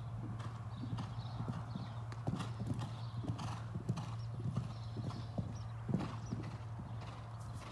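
Hoofbeats of a ridden horse cantering on sand arena footing: irregular dull thuds, loudest in the middle of the stretch, over a steady low hum.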